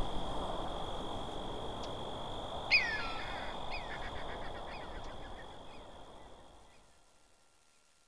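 Background music fading out to silence, with a short falling cry about three seconds in that repeats several times as fading echoes.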